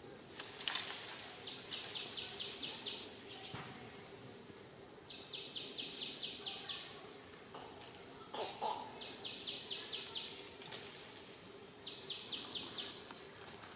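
Outdoor ambience with a high chirping call repeated four times, each a quick run of about eight to ten pulses lasting about a second, every three to four seconds, over a steady faint high hum and a few soft clicks.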